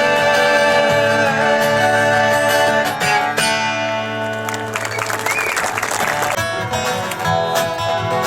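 Country music with guitar, playing without singing.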